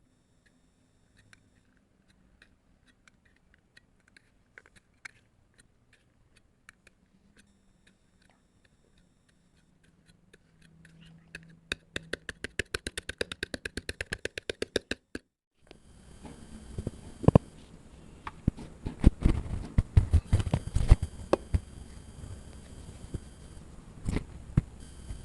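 Kinetic sand being cut and crushed. Faint scattered ticks at first, then a quick even run of crisp cutting clicks, about seven a second. After a brief break comes denser crunching with sharp irregular hits as the sand is crushed.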